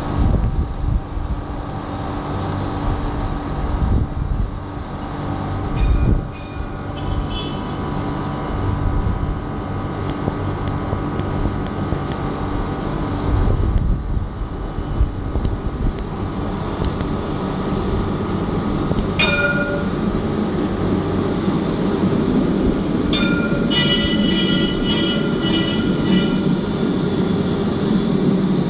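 Alstom Citadis 302 electric tram running along street track, a steady hum from its drive joined by a growing wheel rumble as it comes close. A pitched warning signal sounds briefly about two-thirds of the way through, then rings in quick repeats for about three seconds.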